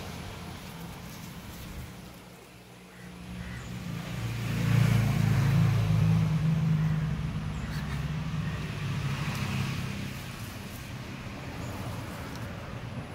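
A motor vehicle passing on a nearby road: a low engine rumble that swells about four seconds in, then slowly fades, over a steady murmur of outdoor traffic.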